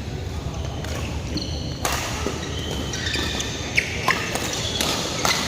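Badminton doubles rally: court shoes squeaking on the hall floor, with a few sharp racket strikes on the shuttle, the loudest a little under four seconds in.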